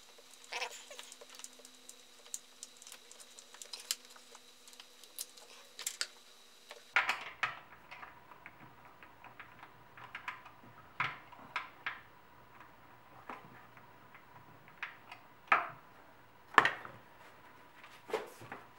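Irregular light clicks and taps of a hand tool working Torx screws into a plastic DISA valve housing, with scattered sharp ticks throughout.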